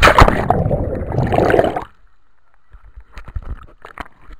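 Scuba regulator exhaust: a loud burst of bubbling about two seconds long, then a few faint clicks.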